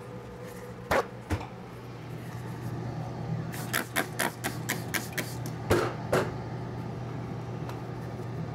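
A trigger spray bottle squirting a plastic petri dish in a quick run of short hisses, about six, then a couple more. A couple of light plastic knocks come before, and a paper towel rubs at the end. Under it all is a steady low hum from the flow hood's fan.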